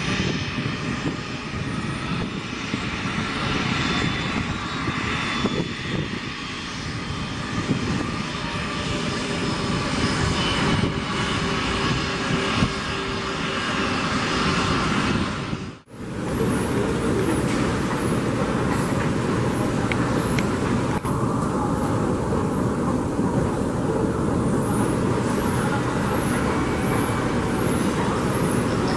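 Twin turbofan engines of an Embraer KC-390 military transport running steadily as it taxis. About halfway through the sound cuts off abruptly and a different steady background noise takes over.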